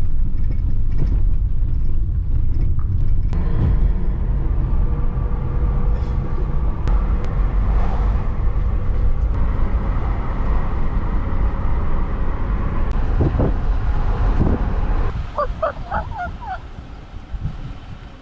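Vehicle driving, a steady low rumble of engine and road noise that eases off about fifteen seconds in, followed by a short run of higher chirping tones.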